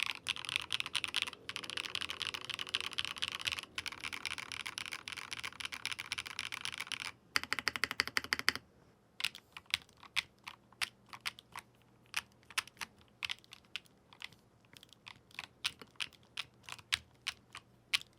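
Meletrix ZOOM75 TIGA mechanical keyboard with its PCB on an O-ring mount, being typed on fast in a steady run of keystrokes for about seven seconds. After that come slower, separate key presses, a few clacks a second.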